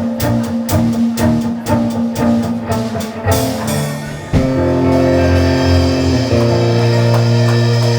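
Live band of guitars, bass and drums playing the song's ending: rhythmic strumming and beats, then about halfway through a final chord is struck all together and held ringing.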